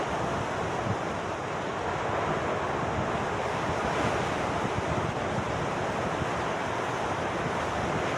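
Rough sea surf washing steadily onto the shore in a continuous rush, with wind buffeting the microphone.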